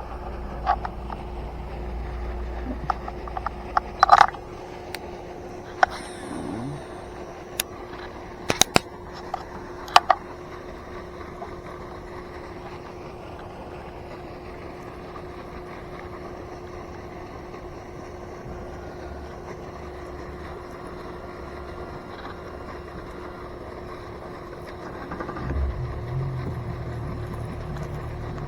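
A steady mechanical hum holding one tone, with a few sharp clicks and knocks in the first ten seconds.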